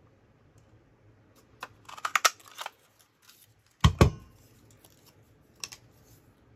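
Plastic lever craft punch being worked, a quick cluster of clacks and snaps about two seconds in, then a heavy thump as it is set down on the cutting mat about four seconds in, and a single light click near the end.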